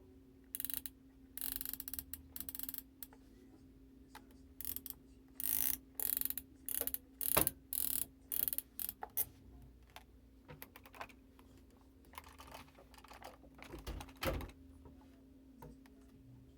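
Plastic housing of an Oster clothes iron being handled and fitted back together during reassembly: a run of short, irregular scraping and ratcheting sounds, with a steady faint hum underneath.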